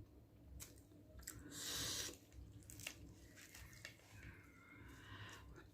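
Faint chewing and small mouth clicks as someone eats, with a brief soft rustle about one and a half seconds in.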